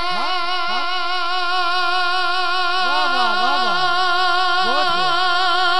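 A man's voice holding one long sung note with vibrato through a microphone and PA, in the style of a Punjabi devotional kalam recital, with fainter sliding vocal lines beneath it.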